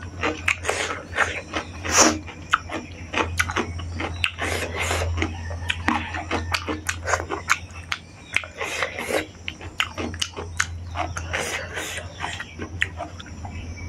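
Close-miked eating sounds: chewing and wet lip smacks in a rapid, uneven string of clicks, with fingers picking rice off a brass plate, over a steady low hum.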